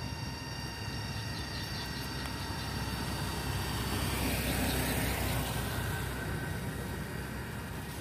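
A motor vehicle passing, its rumble swelling to a peak about five seconds in and then fading, over a steady high-pitched whine.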